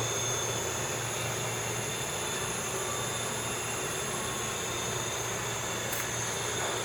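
Steady electric machine hum with a thin high-pitched whine, unchanging throughout, and a faint click about six seconds in.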